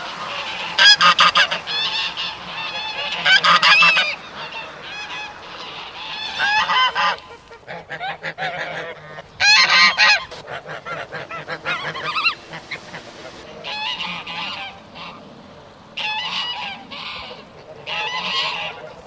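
Several geese honking in bouts: loud, overlapping honks every few seconds, with quieter chatter between them.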